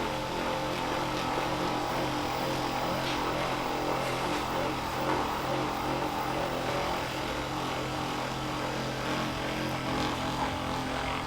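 Electric handheld massager running steadily on the lower back, a constant motor hum with several pitched lines in it.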